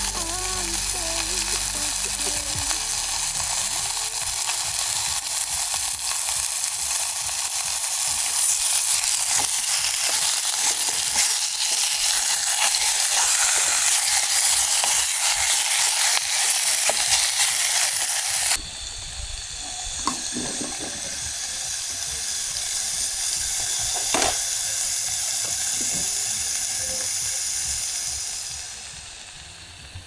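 Pork belly sizzling in a hot pan, a steady hiss with small pops. About two-thirds through it cuts to a quieter sizzle, which fades out near the end.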